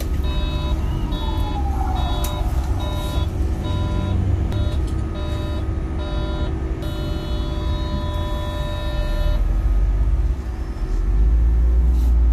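Articulated city bus running, heard from inside the cabin as a steady low engine and road rumble that grows louder near the end. Over it an electronic beep repeats about twice a second, then holds as one unbroken tone for a couple of seconds before stopping.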